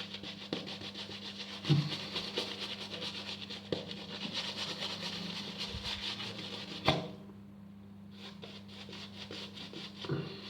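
Shaving brush working soap into lather: a fast, rhythmic, scratchy swishing of bristles. It breaks off about seven seconds in with a sharp knock and then picks up again more softly. A louder thump comes about two seconds in.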